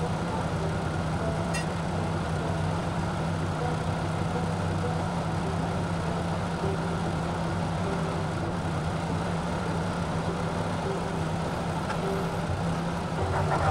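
Farm tractor engine idling steadily, getting a little louder right at the end.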